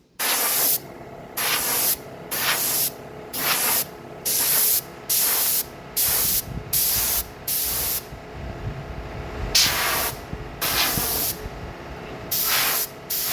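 Paint spraying in short hissing bursts, roughly one a second, as a piece is coated pass by pass.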